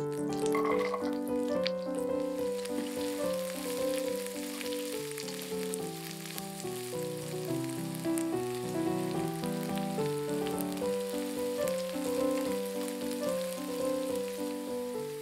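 Butter and sliced green chilies sizzling in a frying pan, a steady hiss full of tiny pops, under background music with a simple melody.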